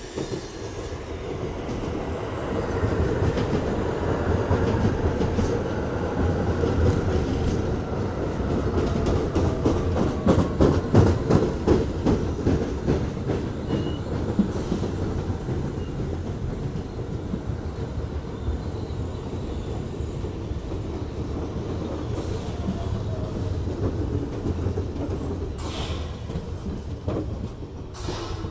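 R46 subway train pulling into the station and braking toward a stop: wheels clicking rapidly over rail joints, loudest as the cars pass close, with a whine that falls in pitch as it slows. Two short high screeches come near the end.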